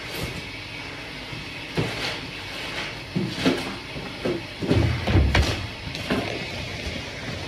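Handling noises: several soft knocks and bumps as raw sausage links are handled at the bench, with one heavier, low thump about five seconds in, over a steady background hum.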